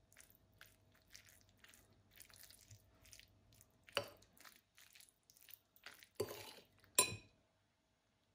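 Metal fork scraping and clinking against a bowl while stirring curry sauce into rice: light scrapes throughout, with three louder clinks about four, six and seven seconds in.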